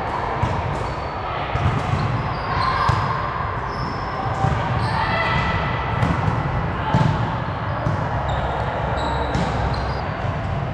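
Volleyball being played in a gym: a steady murmur of players' voices and calls, with repeated sharp knocks of the ball being struck and bouncing on the court.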